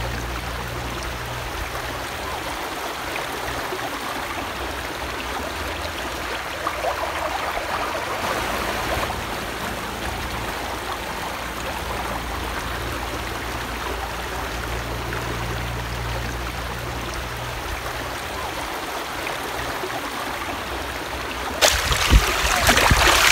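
Shallow river water rushing and trickling over rock ledges in a steady wash. About 22 seconds in it gives way to louder, close splashing as water is splashed onto a face.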